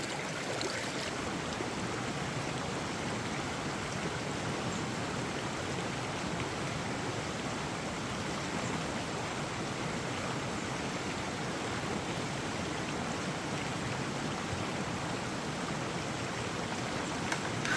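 Steady, even rush of a flowing mountain stream, with a light click or two near the end.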